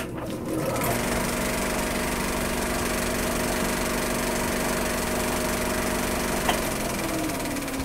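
Vintage film projector sound effect: a steady motor whir with a fine mechanical clatter. It starts abruptly, has a single click about six and a half seconds in, and near the end begins to slow, its pitch falling.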